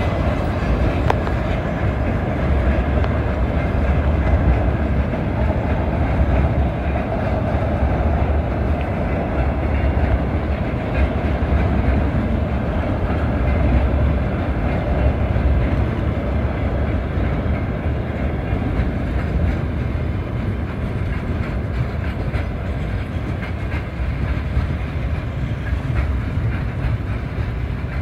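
Loaded freight wagons rolling past close by, first railway tank cars, then open gondola wagons: a steady, loud rumble and clatter of steel wheels on the rails.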